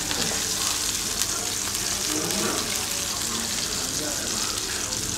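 An egg frying on a flat iron griddle (tawa) over a gas burner, sizzling steadily.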